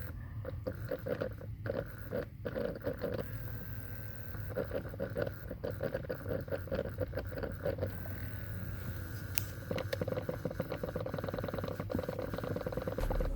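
Repeated clicking from behind the dashboard of a 2003 Honda Pilot, coming from the temperature blend door actuator, in three spells of rapid clicks with short pauses, over a steady low hum. The clicking is the sign of a failing actuator: the owner traced it to dirty contacts inside, which cleaning and dielectric grease cured.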